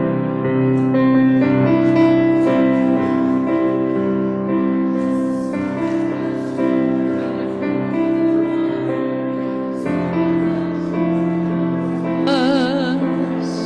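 Church keyboard (piano sound) playing sustained chords as the introduction to a worship song. A held note with vibrato comes in near the end.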